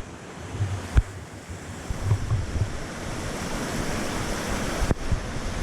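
Rushing water of a waterfall, a steady noise that swells after about two seconds, with two dull knocks, one about a second in and one near the end.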